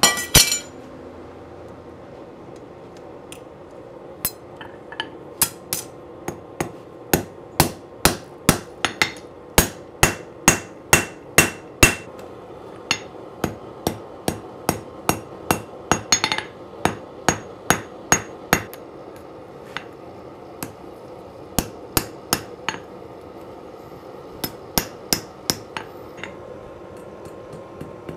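Hand hammer striking red-hot steel on a Nimba anvil, peening over a hot rivet to join the two halves of a pair of forged tongs. A clank of steel set down on the anvil opens, then the blows come in quick runs of about two a second with short pauses between, some leaving a brief metallic ring.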